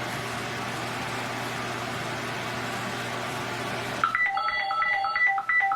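Steady background hum and hiss, then about four seconds in a quick run of about eight telephone keypad touch-tones (DTMF beeps) as a phone number is dialled.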